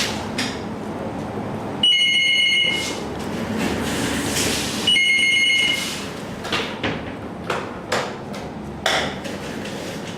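An electronic ringer sounds twice, each ring about a second long and made of two steady high tones, the rings about three seconds apart. A few light clicks and some rustling follow.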